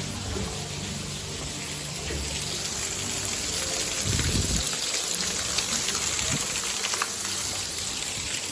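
Steady rush of running water, such as a waterfall or fountain.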